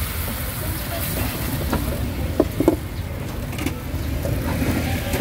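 Yellow pancake batter frying in a hot wok with a steady hiss, under a low rumble of street traffic. A couple of sharp metal clinks come a little over two seconds in.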